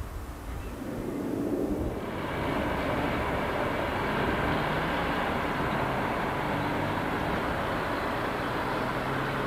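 A passenger train running past: a steady noise with a faint low hum underneath. It comes in fuller about two seconds in and holds.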